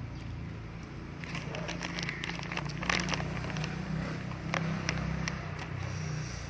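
Eating and food-handling noises: a run of small clicks and crackles close to the microphone from about a second in, over a steady low rumble of distant traffic.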